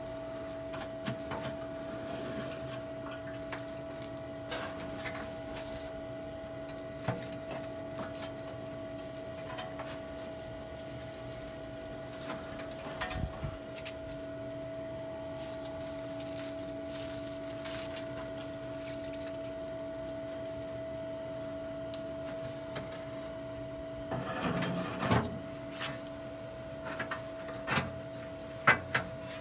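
Weber SmokeFire pellet grill's motor running with a steady hum, with scattered light clicks and metal clatter that cluster about 24 seconds in and near the end.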